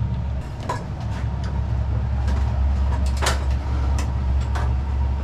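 Steady low machine hum of kitchen equipment, with scattered light clinks and knocks of dishes and cookware, the strongest a short scrape about three seconds in.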